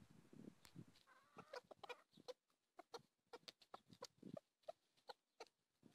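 Silkie chickens feeding, heard faintly: a few soft clucks among many short, sharp taps of beaks pecking food from a plastic tub.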